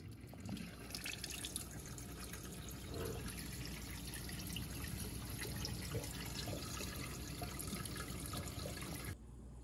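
Water pouring from the hose of an Enagic LeveLuk K8 water ionizer into a stainless steel saucepan, a steady splashing stream that cuts off near the end.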